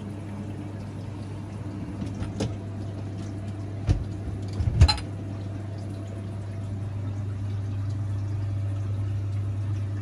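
Dishwasher running water over a steady low hum at the start of its cycle. Glasses in the racks clink a few times, loudest about five seconds in.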